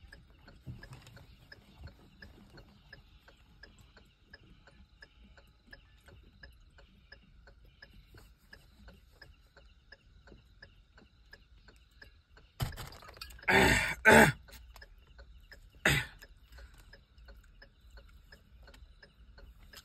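A man coughing and clearing his throat loudly after a long swig of neat whisky from the bottle: a harsh burst lasting over a second about two-thirds of the way through, then one shorter cough about two seconds later. Before it, a faint regular ticking runs underneath.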